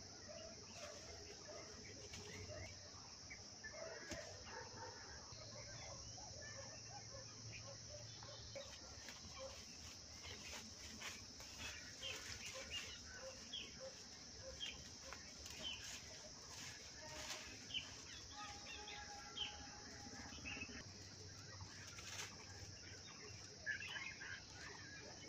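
Steady high-pitched drone of crickets, with faint rustling of leafy branches and sticks and a few sharper clicks as the poles of a brush shelter are handled.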